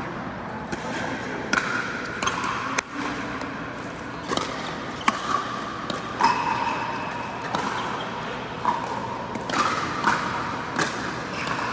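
Pickleball rally on an indoor court: sharp pops of paddles hitting the plastic ball and the ball bouncing on the floor, irregularly about once a second, with short high squeaks between them.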